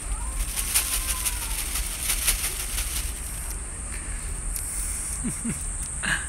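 Outdoor ambience: a steady high-pitched insect buzz over a low rumble, with a few brief rustles in the first half.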